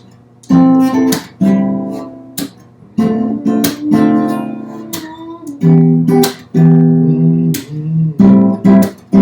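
Acoustic guitar strumming chords in a steady rhythm. Sharp, clipped strokes fall between the ringing chords, which fade after each strike.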